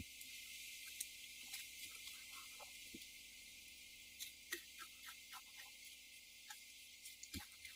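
Very faint scattered clicks and rustles of a langur monkey taking food from a hand and eating it, over a steady hiss, with a soft thump near the end.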